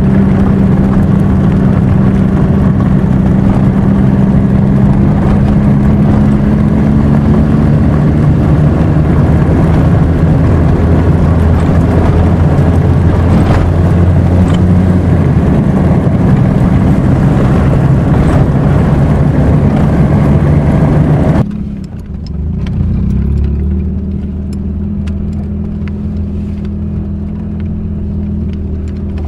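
Car engine and road noise heard from inside the cabin while driving: a steady drone with a low hum. About two-thirds of the way through it drops suddenly to a quieter, lower hum with a few faint clicks.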